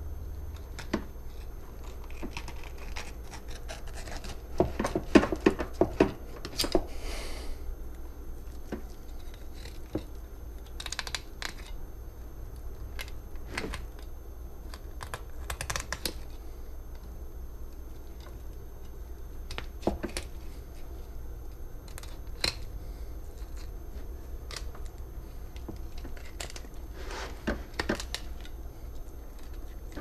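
Filleting a blackfin tuna with a knife on a plastic cutting board: scattered clicks, taps and scrapes as the blade and fish are worked, with a cluster of louder knocks about five to seven seconds in. A low steady hum runs underneath.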